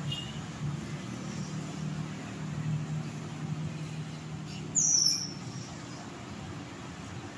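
Street traffic with a steady low engine hum, and about five seconds in a short, loud, high-pitched squeal that falls in pitch.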